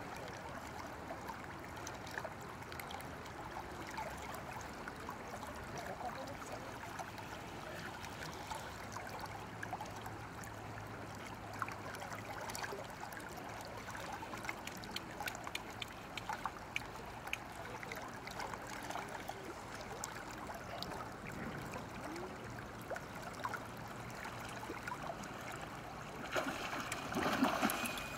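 River water running and lapping steadily. Near the end comes a louder burst of splashing as a hooked chinook salmon thrashes at the surface.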